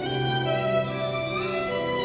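Violin playing a slow melody in long held notes, with a low sustained note underneath.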